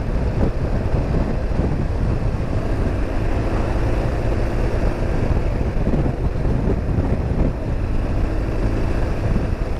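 BMW R 1200 GS motorcycle under way at road speed, its boxer-twin engine running steadily under a heavy rush of wind noise.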